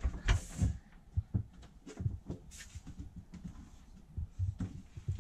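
Quiet handling sounds as a cabin door is eased open: scattered soft knocks and low thumps, with a brief breathy hiss near the start.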